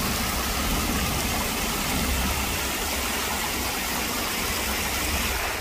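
Water running down a rocky stream cascade: a steady rushing hiss, with a low rumble underneath.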